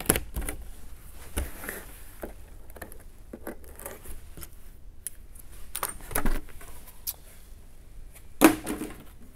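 A cardboard box being opened by hand: a hobby knife slitting the packing tape, and the cardboard sleeve scraping and rustling as it is worked loose and lifted off. A louder cardboard knock and rustle comes near the end.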